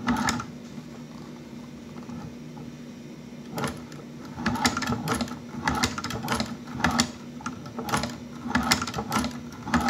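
Hand-crank leather shoe patcher sewing through two layers of thick veg-tan leather: a few stitches at the start, a pause of about three seconds, then a steady run of stitches from about three and a half seconds in, each giving a sharp click, about one to two a second. The click is the bobbin thread popping back up through the bottom of the leather, the sign of a stitch setting in hard leather.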